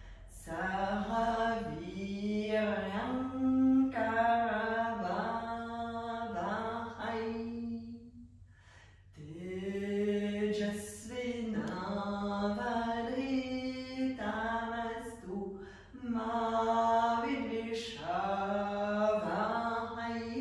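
A woman's voice chanting a mantra phrase by phrase, moving between two or three notes, with a breath pause about eight seconds in and a shorter one near fifteen seconds.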